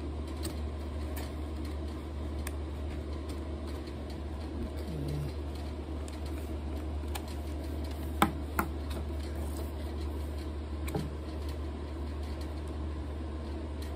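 Handling noises from a 12 V air compressor being turned over and set down: soft rustling and light clicks, with two sharp knocks close together about eight seconds in, over a steady low hum.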